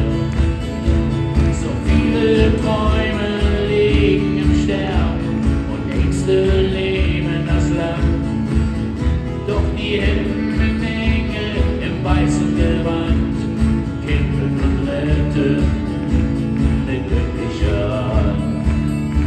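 Live acoustic music: two acoustic guitars strumming steady chords, with a man singing the melody over them through the stage sound system.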